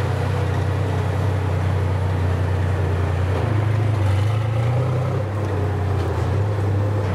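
Heavy diesel engine of a tracked bridge-layer tank running as it drives off, a steady deep engine note that shifts in pitch about three and a half seconds in.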